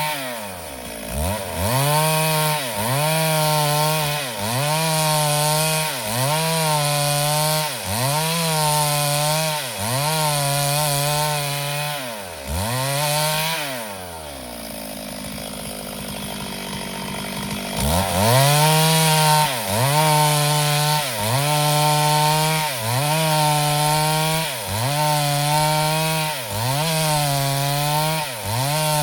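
Two-stroke chainsaw running at high revs, its pitch dropping and recovering roughly once a second as it bogs under load in the cut. About halfway through, the engine winds down to a low, quieter note for a few seconds, then revs up and resumes the same repeating dips.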